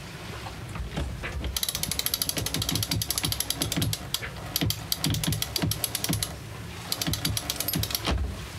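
Sailboat cockpit sheet winch ratcheting as it is cranked with a winch handle to trim in the sheet: fast, even clicking of the winch pawls. The clicking comes in two spells, a long one starting about a second and a half in and a shorter one near the end.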